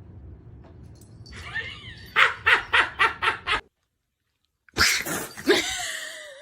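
A dog barking in a quick run of about six barks. After a second of silence a louder, longer sound follows, with a falling pitch.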